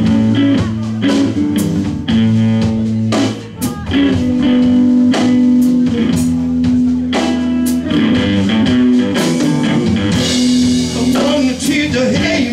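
Live blues band playing: electric guitar, bass guitar and drum kit, with long held, bending notes from a blues harmonica played into a vocal microphone. A cymbal wash comes in about ten seconds in.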